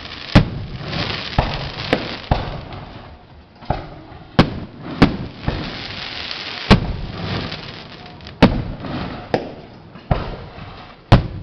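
Fireworks display of 3- to 6-inch mortar-fired aerial shells: about a dozen sharp bangs at uneven intervals, with crackling and hissing between them.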